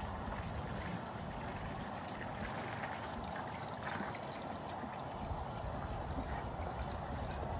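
Water pouring steadily from a PVC outlet pipe into a tub of standing water. A low rumble strengthens about five seconds in.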